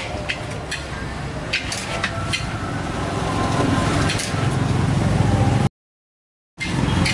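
A metal spatula scraping and clacking against a large wok as a big batch of fried rice is stirred, over a steady low rumble. The sound cuts out completely for about a second near the end.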